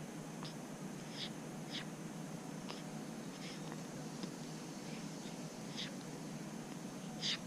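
A baby's small breath and mouth noises: short, soft snuffles and puffs about every second, with no burp.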